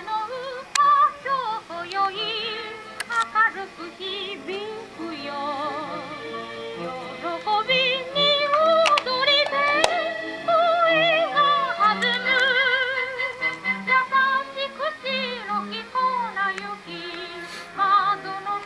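A song with a female singer's voice in strong, wavering vibrato over instrumental accompaniment, played back through a Gakken kit vacuum-tube amplifier (battery powered, 1B2 driver and 2P3 output tubes) and a pair of Panasonic two-way bookshelf speakers.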